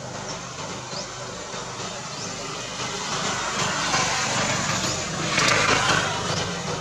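A road vehicle passing by, growing louder to its loudest about five and a half seconds in, then fading. Short high chirps repeat faintly about once a second.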